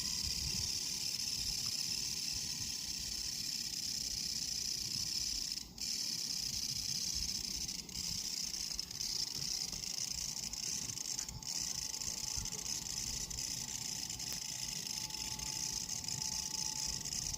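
A continuous, high-pitched buzzing trill from an unidentified creature taken for a singing insect, steady in level, with two brief breaks about six and eleven seconds in.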